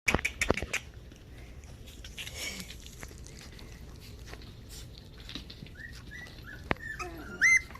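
Havanese puppies whimpering in short, high whines, the loudest a sharp high cry near the end. A quick run of clicks and knocks at the very start.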